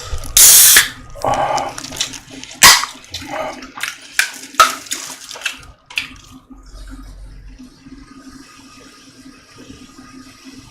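Eating and drinking noises: a short loud hiss about half a second in, then a run of short wet slurps and clicks for several seconds, after which only a low steady hum remains.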